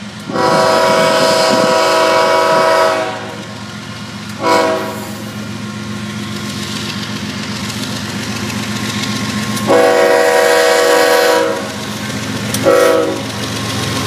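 Approaching Union Pacific freight train sounding its multi-chime air horn in four blasts: long, short, long, short. Under the horn the diesel locomotives run with a steady low rumble that grows louder as the train nears, with wheels clacking on the rails.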